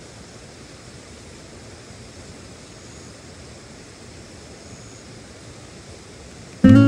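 Steady, even outdoor rushing noise with no distinct events. Near the end, loud acoustic guitar music starts abruptly.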